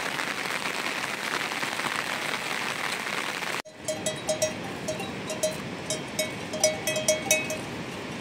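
A steady hiss for the first three and a half seconds. It breaks off suddenly, and livestock bells take over, clanking irregularly about two or three times a second among a grazing herd of water buffalo.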